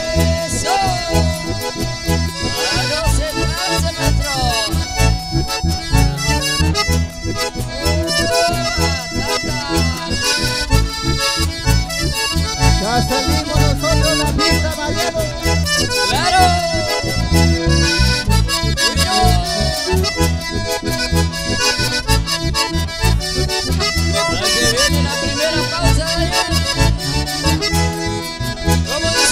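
Live instrumental passage: a bandoneón and an accordion play the melody together over strummed guitar and a steady pulsing beat.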